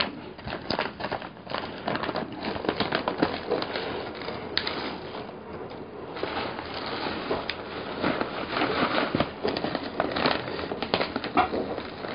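Crinkling and rustling of a plastic bag of bread crumbs being handled, with dry crumbs shifting and pouring out of a blender jar; a dense, crackly noise full of small clicks.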